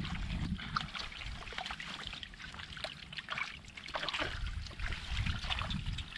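Small, irregular splashes and wet sloshing in shallow muddy water as hands grab at catfish and the fish thrash. The splashes come in scattered, quick bursts over a low rumble.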